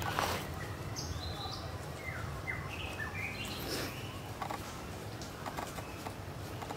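Forest ambience: a steady low rumble with scattered short, high animal chirps and a few falling whistles.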